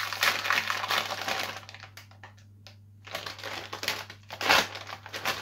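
Plastic snack packet crinkling and crackling as it is pulled open by hand, dying down about two seconds in, then rustling again as the opened bag is handled, with one sharper crackle near the end.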